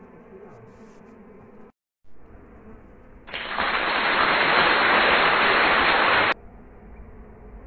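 Bees buzzing steadily around an opened wild nest in the ground. The sound drops out briefly about two seconds in. About three seconds in, a loud, even hiss drowns it for three seconds, then cuts off abruptly.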